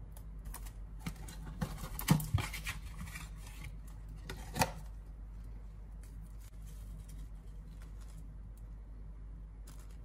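Cardboard tea box being opened and rummaged for a paper-wrapped tea bag: crinkling and scraping of card and paper with a few sharp knocks about two and four and a half seconds in.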